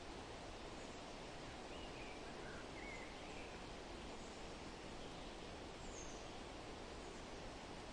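Faint, steady rustle of wind through forest leaves, with a few soft bird chirps about two to three and a half seconds in and one higher chirp near six seconds.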